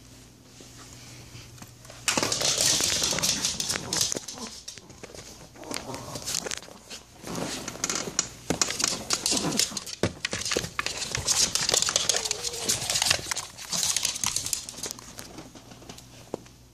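Small dog playing rough with a green plastic ball toy: busy crinkling, rattling and clicking of plastic that starts about two seconds in and keeps going until near the end. A few short dog vocal sounds come through in the middle.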